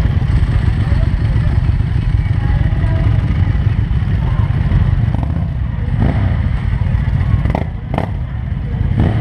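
Motorcycle engine running at low speed under a steady low rumble, with people's voices in the background. Two sharp clicks come near the end.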